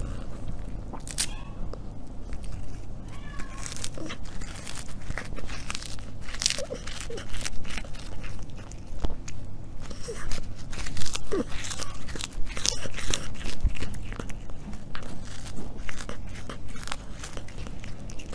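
A cat crunching and chewing on something held to its mouth: many quick irregular crunching clicks throughout, with two short meows in the first few seconds.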